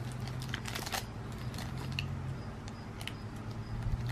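Small patterned plastic wrapper bag from an LOL Surprise doll crinkling and crackling in a child's fingers as she picks it open, in scattered small crackles over a low steady hum.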